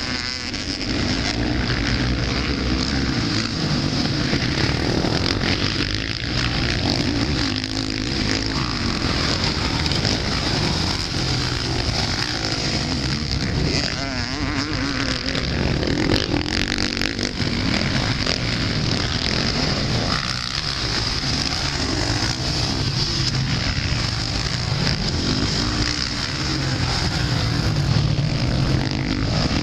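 Motocross bike engines racing on a dirt track, the revs rising and falling as riders open and close the throttle over the jumps.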